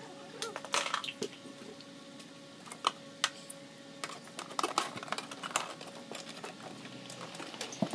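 Irregular light clicks and taps of hand tools and parts being handled in a car's engine bay, over a faint steady hum.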